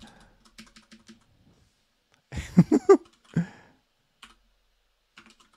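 Typing on a computer keyboard, quick light key clicks that stop for a few seconds and start again near the end. In the gap a short chuckle is the loudest sound.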